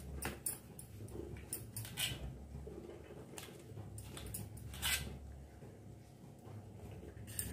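A kitchen knife slicing a steamed colocasia-leaf (patra) roll on a stainless steel plate, the blade striking the steel in several sharp clicks, the loudest about five seconds in.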